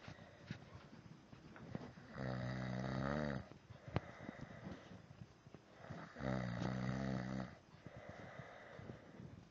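A sleeper snoring: two long, pitched snores about four seconds apart, each lasting over a second, with quieter breathing between them and a sharp click just after the first.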